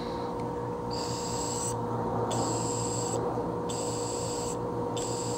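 Breath blown into a Briggs & Stratton 550EX carburetor's fuel inlet, hissing through the float needle valve in four puffs about a second long each. This is the blow test of the needle and seat, which seem to be working all right. A steady hum runs underneath.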